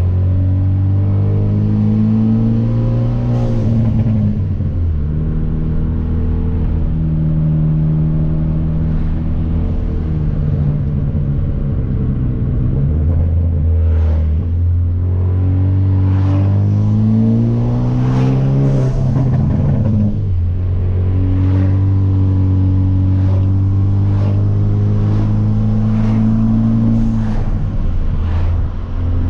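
Hyundai Veloster Turbo's turbocharged four-cylinder with a catless downpipe, heard from the cabin with the windows down. The engine pulls up in pitch twice and drops sharply between these climbs, and holds a steady cruising drone in between, with scattered short sharp pops.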